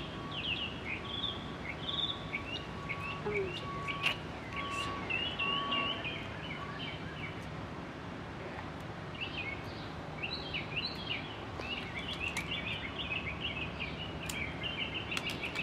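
Small birds chirping in many quick, short notes, thinning out about six seconds in and picking up again around nine seconds, over a steady low background hum. A couple of faint clicks.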